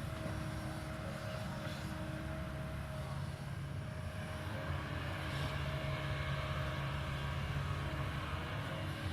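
Kobelco 220 excavator's diesel engine running steadily under working load: a low drone with a thin steady whine above it, swelling slightly about halfway through.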